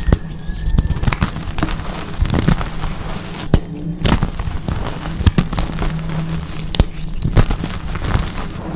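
Dyed gym chalk blocks being crushed, a dense run of irregular sharp crunches and crackles over dull low thuds.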